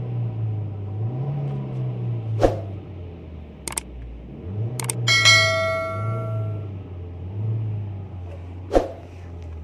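Car engine running with several short revs. Over it come a few sharp knocks and one metallic clang that rings on for about a second and a half, about halfway through.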